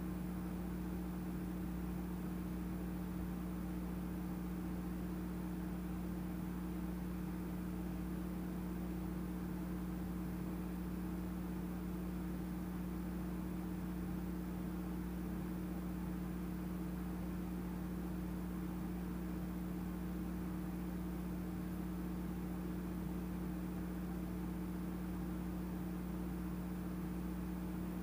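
Steady low mechanical hum with a constant tone, unchanging throughout and without knocks or thuds.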